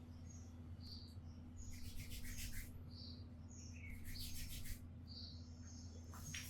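Hands working over a head of hair in a head massage, giving two short spells of rapid scratchy rubbing about two and four seconds in. Small birds chirp over and over in the background, above a low steady hum.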